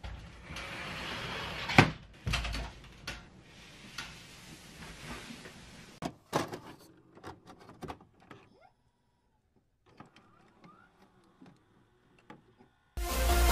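A sliding closet door rolling along its track and knocking to a stop about two seconds in, followed by a few more knocks and clicks, then scattered crackles. Electronic music with a heavy beat starts near the end.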